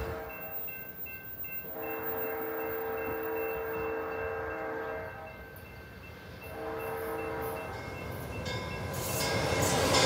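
Horn of an approaching Amtrak Cascades F59PHI diesel locomotive sounding a chord in blasts: a long blast of a few seconds, then after a pause a shorter one. The train's running noise grows louder near the end as it arrives.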